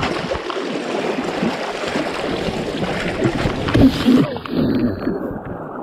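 Fast river current rushing and splashing along the side of an inflatable kayak held against a grate, with a few knocks against the hull. About four seconds in, the sound turns muffled.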